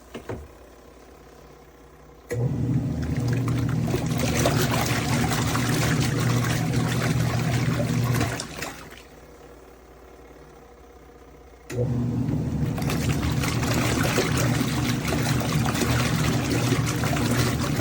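Twin-tub portable washing machine's wash motor running in two spells of about six seconds with a pause of about three seconds between, a steady motor hum under water churning in the tub.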